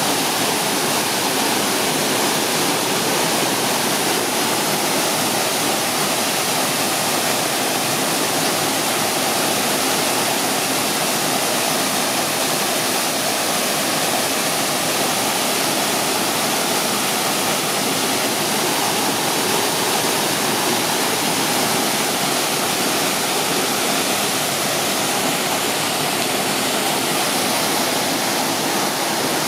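Waterfall with water pouring and splashing, a loud, steady rush.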